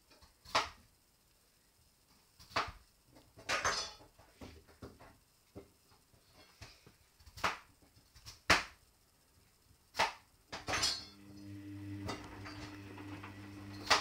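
Hoover Dynamic front-loading washing machine in its rinse: scattered sharp knocks and clanks as the wet load, a denim jacket among it, drops in the drum. About eleven seconds in, the drum motor starts with a steady low hum.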